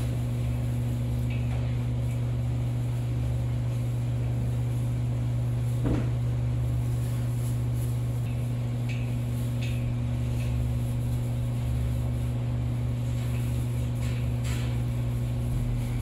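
A steady low hum runs throughout. About six seconds in there is one short animal call, and faint rustles of animals moving in straw can be heard.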